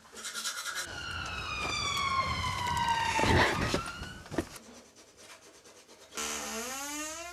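Dramatic trailer sound effects: a falling electronic tone over a low rumble that ends in a loud hit, then a sharp click. Near the end a new tone starts rising in pitch.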